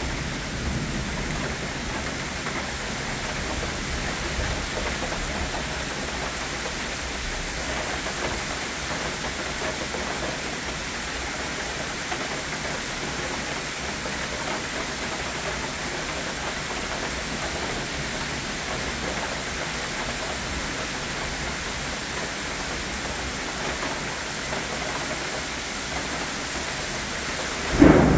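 Steady downpour of summer rain hissing on the leaves of the trees. Near the end a loud crack of thunder breaks in suddenly.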